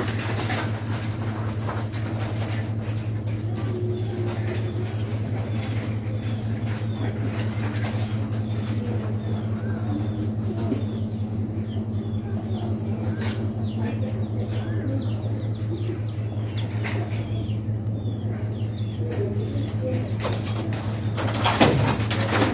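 Birds chirping with short, high calls, mostly in the middle of the stretch, and pigeons cooing now and then, over a steady low hum.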